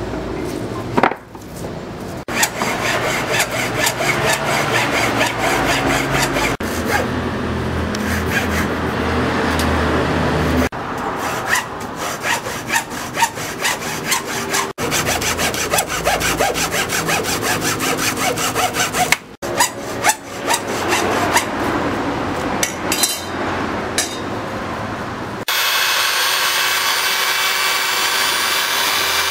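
A hand tool rasps through dried corn cob in quick repeated strokes, in several separate stretches. Near the end it gives way to a Modern M-2100C electric drill running steadily, spinning a piece of corn cob mounted on its chuck.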